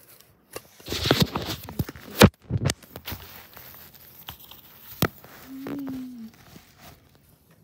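Handling noise on a phone's microphone as it is moved about: rubbing with several sharp knocks, the loudest about two seconds in, another click about five seconds in, and a short falling whine-like tone soon after.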